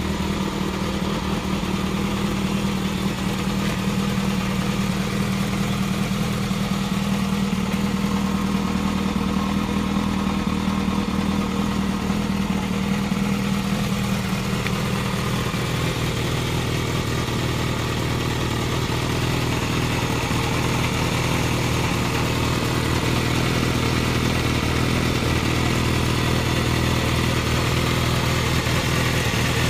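Yamaha XJR400's air-cooled inline-four idling through a WR'S aftermarket silencer, steady throughout. About halfway through the engine note drops to a lower pitch and holds there.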